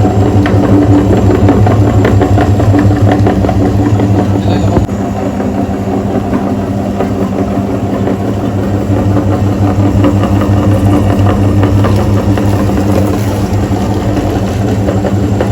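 A small motor running steadily with a dense mechanical rattle. The level drops slightly about five seconds in.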